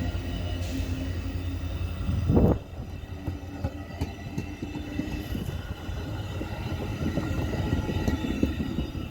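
Metra commuter train's diesel locomotive running with a steady low drone. About two and a half seconds in, a brief loud rush cuts the drone off, leaving a rougher rumble and rattle of rail cars on the track.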